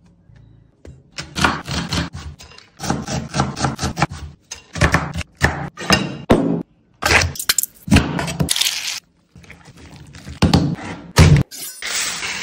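Quick series of kitchen prep sounds: knocks and clinks of a spoon in a ceramic bowl, and a chef's knife chopping and scraping on a wooden cutting board, each a short sharp hit.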